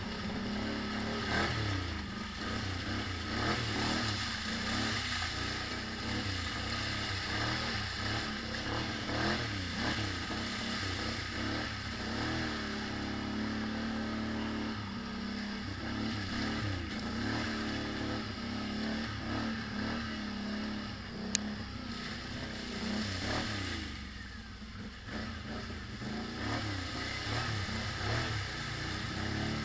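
ATV engine running as it is ridden, the revs rising and falling again and again with the throttle, with one sharp click about two-thirds of the way through.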